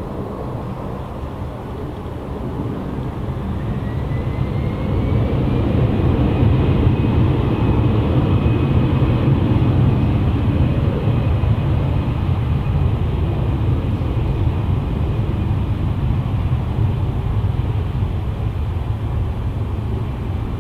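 Boeing 747-400F jet engines rumbling on the landing rollout. About four seconds in, a whine rises and then holds as the engines spool up and the rumble swells, then eases off slowly.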